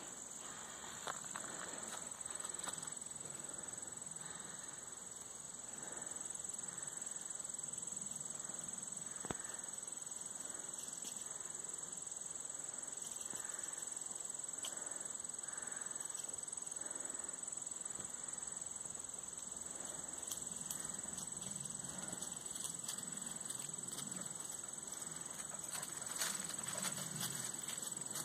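Steady high-pitched trilling of an insect chorus, holding one pitch throughout.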